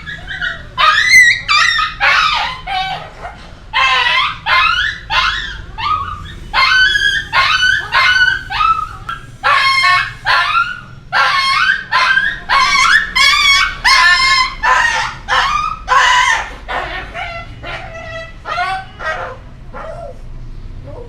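A dog whimpering and yelping in a long string of short, high, wavering cries, about two a second, fading somewhat near the end.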